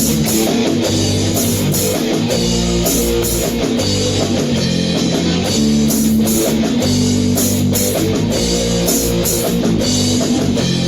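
Rock band music: guitar over a drum kit, playing the instrumental introduction of a song with no vocals yet.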